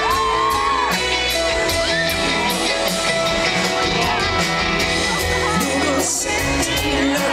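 Live rock band playing through a concert PA, with a steady drum beat, guitars and a singing voice, and the audience shouting and whooping along.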